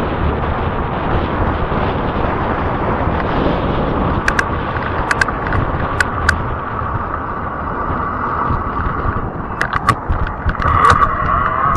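Wind rushing over the microphone and fat tires rolling on pavement as an e-bike is ridden, with a few sharp clicks and rattles from bumps in the road partway through. A thin whine comes in near the end.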